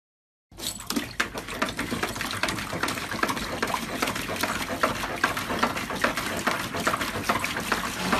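Water splashing and sloshing in a plastic paddling pool as a puppy paws and churns it, a steady run of quick splashes beginning about half a second in.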